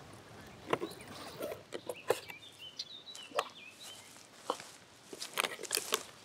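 Rustling and soft clicks of small objects being handled on a picnic blanket, with a short bird call warbling in the middle.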